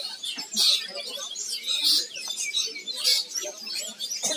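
Several caged songbirds chirping and singing at once, dense overlapping high trills and calls, with people's voices faintly underneath.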